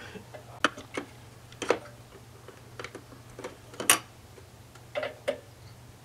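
Irregular sharp metal clicks, about eight in six seconds and some in quick pairs, as a small wrench works a nut on an RV stabilization jack.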